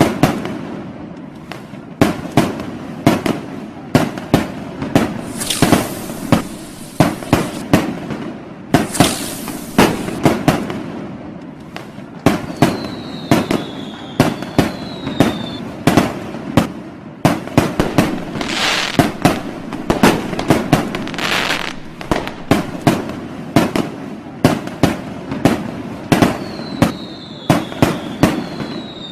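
Fireworks and firecrackers going off: a steady run of sharp bangs and cracks, with several longer hissing bursts and, twice, a falling whistle.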